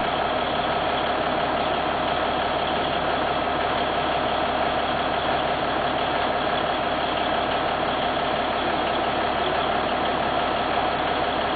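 Chairlift terminal machinery and bullwheel running, a steady, unbroken mechanical drone.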